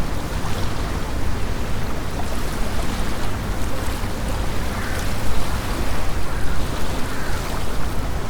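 Wind blowing across a lake with small waves lapping against the shore, and a deep rumble of wind on the microphone underneath.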